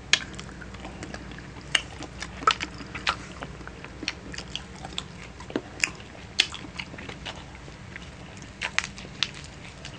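Close-up eating sounds of soy-braised adobo chicken feet being bitten and chewed, with scattered short, sharp clicks.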